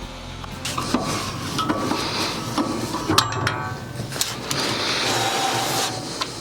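Irregular knocks and clatter of wood and metal, as sawn boards are handled and moved at the sawmill, with a few short metallic rings.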